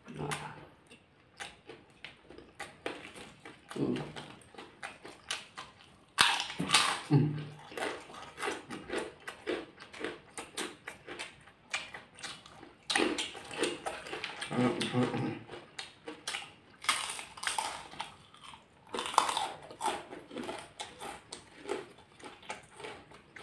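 Close-miked eating by hand of rice with fried kerupuk crackers and side dishes: steady wet chewing and mouth clicks, with louder crunching spells about six, thirteen and seventeen seconds in as the crackers are bitten. There are a few brief low hums from the eaters.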